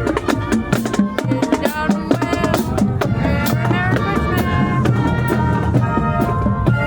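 Music with a busy drum beat under a pitched melody, of the kind played by a passing parade band or float.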